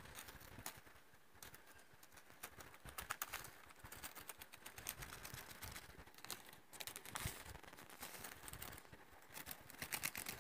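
Faint, irregular crinkling and light ticks of a plastic biscuit packet being handled as biscuit is tipped out of it into a plastic tub.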